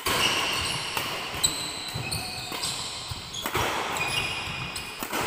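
Badminton rally: a few sharp racket strikes on a shuttlecock, with shoes squeaking on a wooden court floor, echoing in a large hall.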